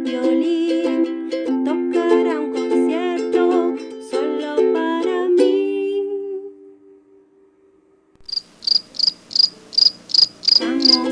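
Ukulele music that fades out about halfway through, then after a short pause a cricket chirping in a steady run of short high chirps, about four a second, with the ukulele coming back in near the end.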